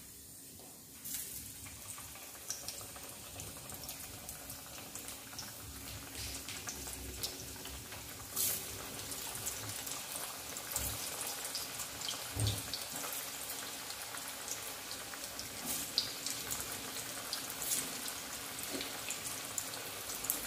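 Alu vadi slices deep-frying in hot oil in a kadhai: a steady sizzle with scattered crackles and pops, starting about a second in.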